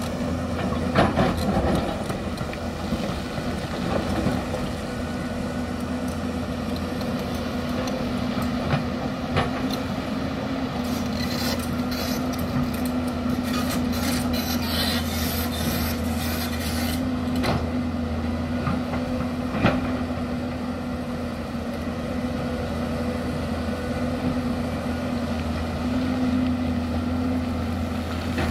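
Hyundai crawler excavator's diesel engine running steadily under digging load, with the steel bucket scraping and knocking against rocky soil. A few sharp knocks come at the start and near the middle, and there is a stretch of harsh scraping about halfway through.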